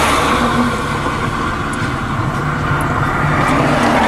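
Steady car noise heard from inside the vehicle: the engine running under a constant rush of wind, with a low hum that comes and goes.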